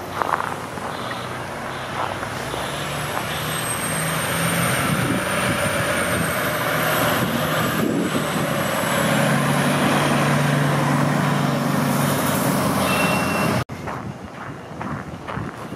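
Fire department aerial ladder truck's diesel engine running as the truck drives along the road, growing steadily louder to a peak over several seconds, with a faint high whine. It ends in a sudden cut near the end.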